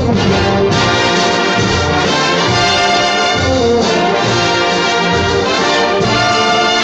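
Orchestral backing music led by brass, playing an instrumental passage of the song with no singing.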